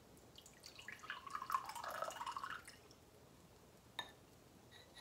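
Liquid poured from a ceramic mug into a ceramic chalice: a faint splashing gurgle for about two seconds, then a single sharp tick about four seconds in.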